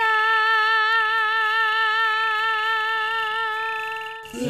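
A woman singing in a Naga folk tune, holding one long note with an even vibrato for about four seconds before it fades. Right at the end a group of men's voices comes in, singing together.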